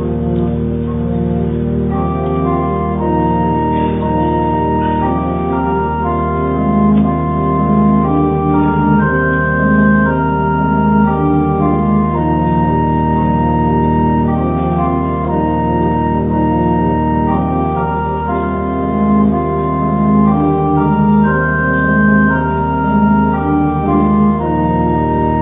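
Church organ playing a slow piece, with long held chords over a steady bass note and a melody moving slowly above them.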